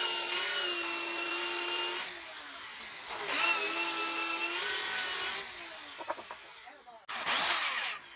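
Small electric drill running with a steady whine in three bursts: a long run that stops about two seconds in, another of about two seconds, and a brief one near the end.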